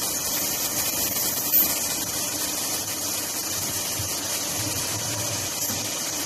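CNC pre-insulated duct panel cutting machine running: a steady, even hiss over a low hum, with one short click about one and a half seconds in.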